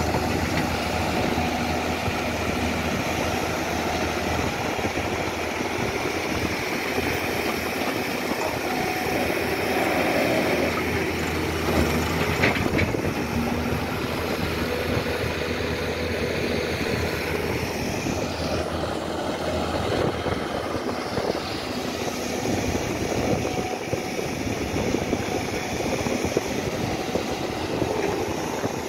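Diesel engines of farm tractors and an excavator running steadily, with a sharp knock about twelve seconds in.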